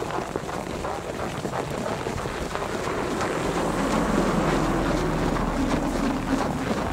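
Footsteps on packed snow with wind buffeting the microphone. From about three seconds in, a vehicle's low engine and tyre rumble swells as it passes along the road.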